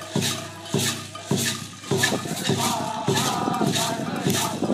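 Large drum beaten in a steady beat a little under two strokes a second, under a chanted song.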